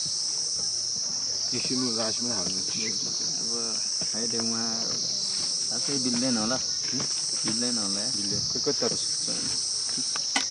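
A steady, high-pitched insect chorus whose upper edge swells and fades every second or two, with quieter voices talking underneath and a sharp click near the end.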